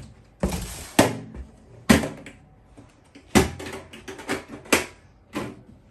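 Aluminium storage box being handled and opened: a short scraping rush about half a second in, then a string of about eight sharp metallic clicks and knocks from its latches and lid.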